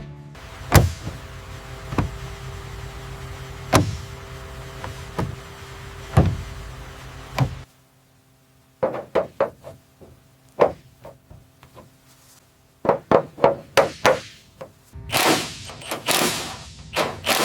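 Sharp knocks a second or two apart over a steady low hum, then after a brief pause a quick run of clicks and knocks, and near the end a few short noisy bursts.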